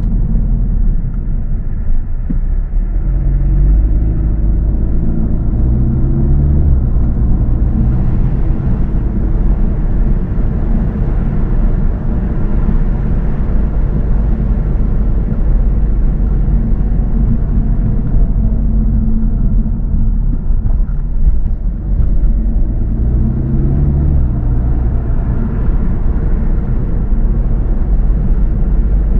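A car driving: steady low road and engine rumble, with the engine note climbing twice as the car accelerates, a few seconds in and again near the end.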